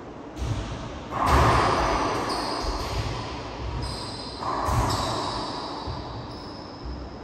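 Racquetball rally: the ball cracking off racquets and the court walls, each hit ringing out in the enclosed court's hard echo. The two loudest hits come about a second in and again about four and a half seconds in, with lighter knocks between.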